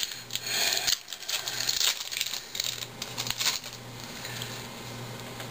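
Foil trading-card pack wrapper crinkling as a pack of baseball cards is opened, in crinkly bursts over the first three and a half seconds, then softer rustling as the cards are handled. A low steady hum lies underneath.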